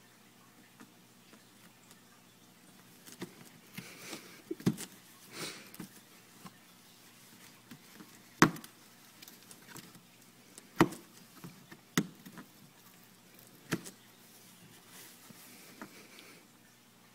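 A cat clawing and tearing at a cardboard box from outside, working at a hole in its top: scratchy rustling of cardboard with about five sharp knocks on the box, the loudest about eight seconds in.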